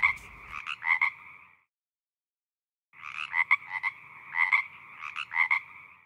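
Frog croaking in rapid pulsed calls: a short run, a pause of about a second and a half, then a longer run of croaks.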